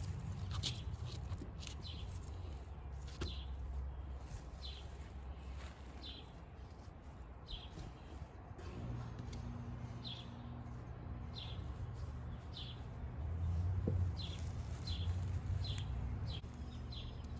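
A small bird chirping over and over, short falling chirps every second or so, over a low rumble; a low steady hum joins about halfway through.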